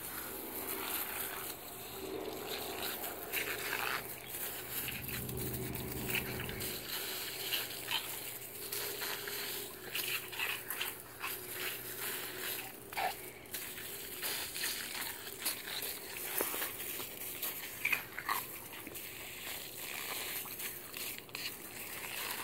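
A German shepherd mouthing and chewing a running garden hose, with many sharp clicks, a few brief high-pitched sounds from the dog, and the hiss of water spraying from the hose.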